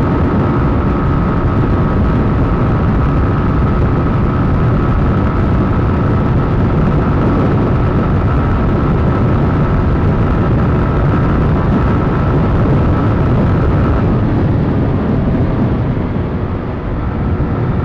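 Mondial 125 KT's single-cylinder engine running hard at road speed, heard through a helmet camera with heavy wind rush on the microphone. The engine note eases off about three-quarters of the way through.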